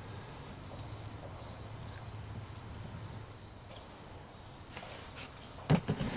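Crickets chirping outdoors, short high chirps repeating about twice a second, with a couple of low knocks near the end.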